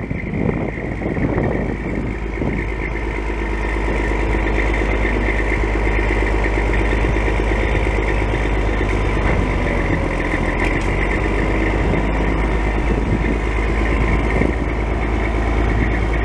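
The Detroit Diesel Series 60 12.7 L straight-six of a 1993 Kenworth T600 dump truck running steadily while its PTO-driven hoist raises the dump bed. It gets a little louder over the first few seconds, then holds steady.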